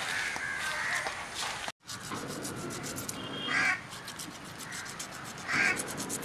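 A knife scraping scales off a tilapia in quick rasping strokes, with a crow cawing twice in the second half, the loudest sounds. The sound cuts out briefly about two seconds in.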